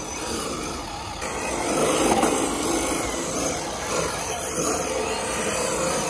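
MST RMX 2.0 rear-wheel-drive RC drift car driving and sliding on concrete: its electric motor whines and its hard drift tyres scrub, growing louder about a second in.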